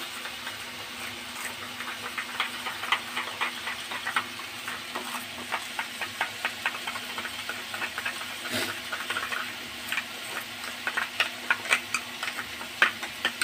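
Steel spoon stirring a thick paste of curd and ground spices in a small steel bowl, with irregular clicks and scrapes of the spoon against the bowl. Behind it runs a steady hiss from onions and tomatoes frying in oil.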